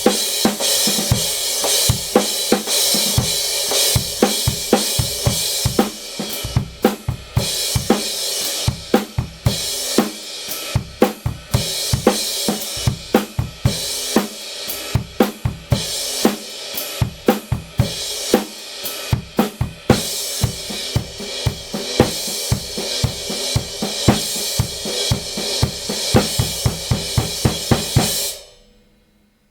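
Drum kit played in a steady, busy groove of snare, bass drum and hi-hat under a continuous cymbal wash from the Kingdo Artist Modern 17-inch crash cymbal being sound-tested. The playing stops abruptly near the end and the cymbal dies away.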